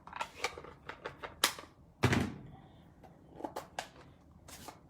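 Light taps and clicks of stamping supplies being handled on a craft desk, with one heavier thump about two seconds in.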